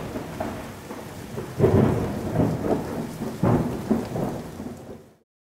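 Thunderstorm: several rolls of thunder over steady rain, cutting off suddenly about five seconds in.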